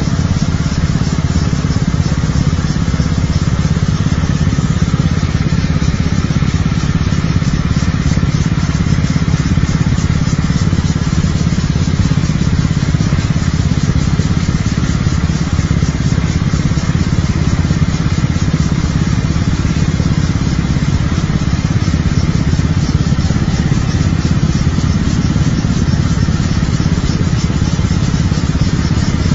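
Motor scooters running slowly along a road: a steady engine hum with road noise.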